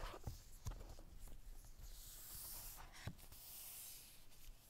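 Faint handling of an Apple Watch's white cardboard box with gloved hands: a few light knocks, then two stretches of dry, hissing cardboard rubbing and sliding in the second half.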